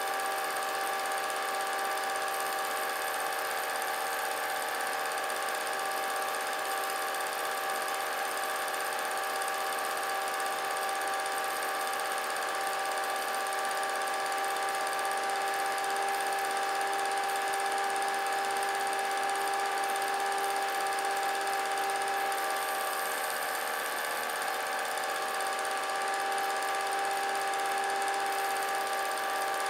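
A small motor or fan running steadily, a constant-pitch whine with several overtones over a faint hiss.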